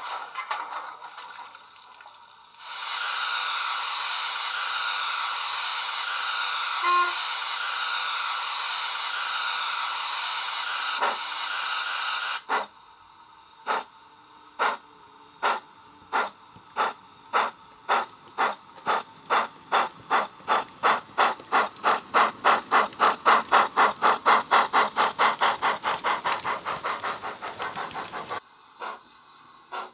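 Digital steam sound from a Hornby Princess Coronation Class model's DCC sound decoder, SWD's Princess Coronation sound file, played through a small flat speaker: a steady hiss of steam for about ten seconds. The hiss cuts off and exhaust chuffs begin, slow at first and quickening steadily as the locomotive pulls away, growing louder and then fading until they stop near the end.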